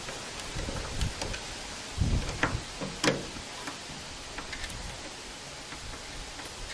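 Small metal clicks and ticks from a screwdriver turning a screw into a stainless steel antenna mount plate, with a sharper click about three seconds in. Wind buffets the microphone now and then.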